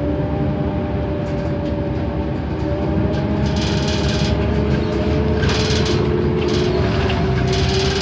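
Inside a NABI 31-LFW city bus under way: its Cummins Westport ISL G natural-gas engine and Allison automatic transmission drone with a steady whine that slowly rises in pitch as the bus gathers speed, over low road rumble. Bursts of hiss come in from about halfway.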